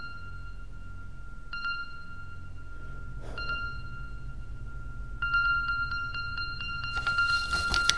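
Horror-film score: a low drone under a high ringing tone that is struck again about every two seconds. After about five seconds the strikes come quickly, and near the end the sound swells into a rising rush of noise.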